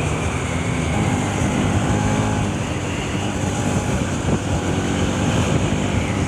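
Bajaj Pulsar NS200's single-cylinder engine running steadily under a rider on the move, with rushing wind noise.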